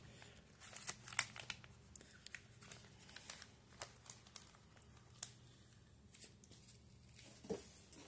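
Packing material crinkling and rustling in short, irregular handling sounds with light clicks, as ceiling-fan blade arms are lifted out of their wrapping in the box.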